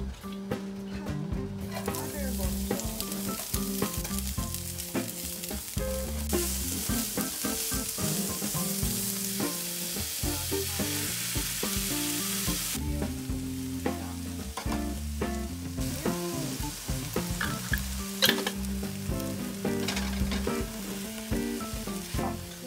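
Diced vegetables and kimchi sizzling in hot oil in a nonstick frying pan and being stirred with a silicone spatula. The sizzle starts about two seconds in, is loudest from about six to thirteen seconds, then carries on more softly.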